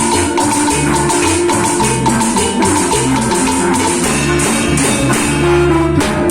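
Band music with a steady beat: a bass line under drums and plucked guitar.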